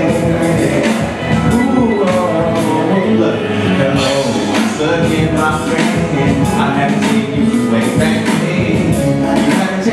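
Male vocalist singing an R&B/hip-hop song live into a handheld microphone over a recorded backing track with a steady beat.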